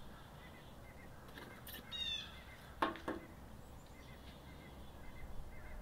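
Quiet outdoor ambience with faint bird chirps, a short bird call about two seconds in, and two sharp knocks in quick succession about a second later.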